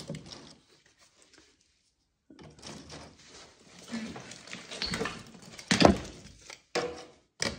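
Dry sticks of firewood being handled and laid into a wood stove's steel firebox: rustling and clattering of wood, with one sharp knock of wood against the stove about six seconds in. The first second or two is almost silent.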